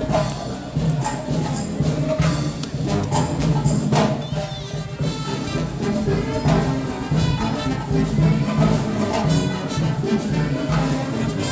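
Upbeat music with brass and a steady percussion beat.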